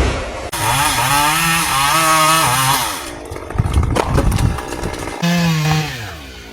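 Chainsaw running at high revs, its pitch wavering as it works, then a crash with a sharp knock about four seconds in. The saw comes back revving and winds down near the end.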